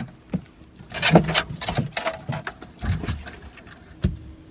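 Several separate knocks and bouts of clatter, about five in all, as things are handled on a fishing boat, with one last sharp knock near the end.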